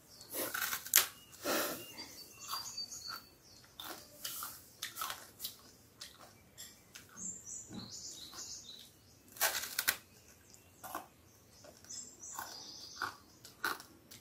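Crunching and chewing of cu đơ candy, a peanut-and-molasses brittle sandwiched between crisp rice crackers: irregular crisp crackles as it is bitten and chewed, loudest about a second in and again around nine and a half seconds in.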